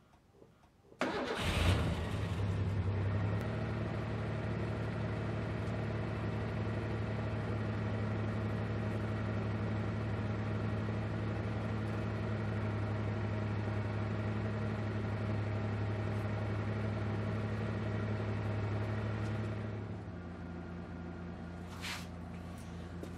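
Small electric piston air compressor starting up about a second in and then running steadily with a motor hum. About 20 s in it drops in level and changes tone, and a short hiss follows.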